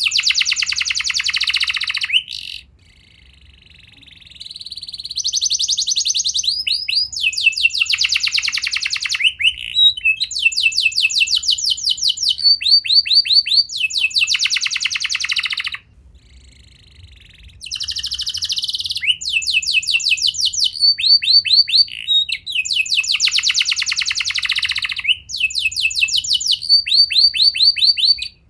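Canary singing a long song of fast trills and rapidly repeated high notes, changing from one roll to the next, with two short pauses, one about three seconds in and one about sixteen seconds in.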